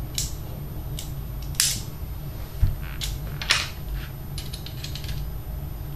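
Small metal clicks and clacks of a homemade bit extender and bits being fitted into a Leatherman Charge TTI multitool: about five sharp clicks spread through the first few seconds, then a quick run of lighter ticks.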